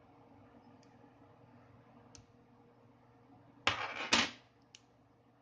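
Handling noise from taking apart a small mobile phone: a few faint ticks, then a short scraping rustle in two quick pulses about two-thirds of the way through.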